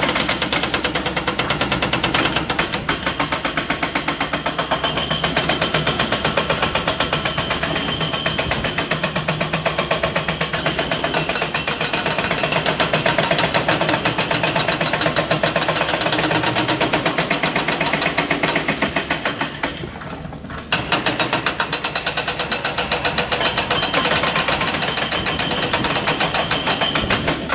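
Indeco hydraulic breaker on a Case excavator hammering rapidly and without let-up into rubble and masonry, with a brief pause about twenty seconds in.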